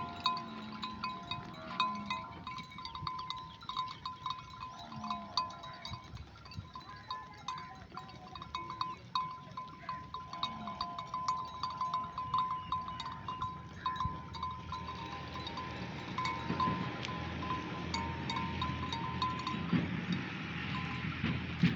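Sheep bells clanking and tinkling without pause as a flock moves and grazes, with sheep bleating about three times in the first half. A steady hiss builds in the second half.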